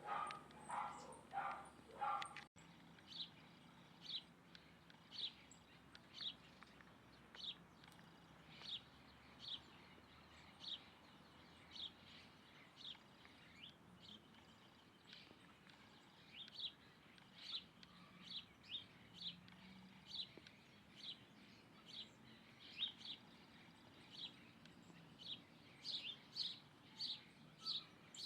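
Small bird chirping: short, high single chirps about one or two a second, coming faster near the end. A dog barks several times in the first two seconds, before an abrupt cut.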